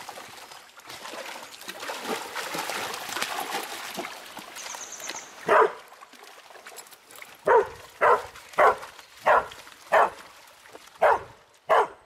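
Dogs splashing through shallow river water, then a dog barking repeatedly: about eight sharp barks in the second half, roughly one or two a second.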